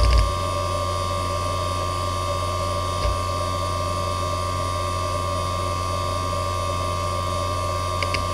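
Fujitsu MPF3102AT 3.5-inch hard drive spinning with a steady whine and hum from its spindle motor while its heads rest. There is a single seek click about three seconds in and a couple more just before the end.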